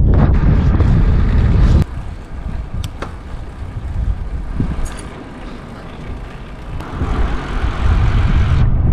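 Wind buffeting the microphone of a camera on the move, a loud low rumble. It drops off suddenly about two seconds in, leaving a quieter stretch with a few light clicks, and comes back about seven seconds in.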